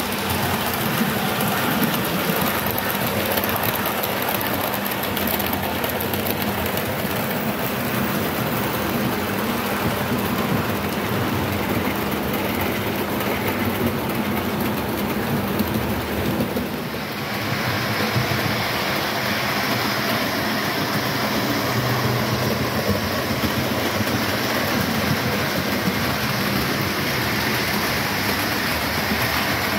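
Model railway trains running on the layout: the steady hum of the locomotive motors and the rolling rattle of the wheels over the track. About halfway through, the sound changes abruptly to a brighter, hissier rolling as a train of coaches passes close by.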